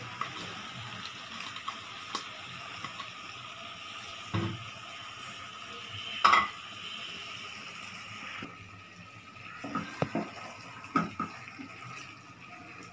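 Steady hiss of potato and capsicum curry cooking in a steel pot, with a few knocks and scrapes of a spoon against the pot. The loudest knock comes about six seconds in, and a cluster follows around ten to eleven seconds as it is stirred. The hiss thins out about eight and a half seconds in.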